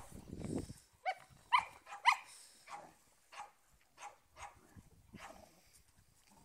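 Small dog barking: three sharp, high-pitched barks in quick succession about a second in, then fainter barks repeating every half second or so.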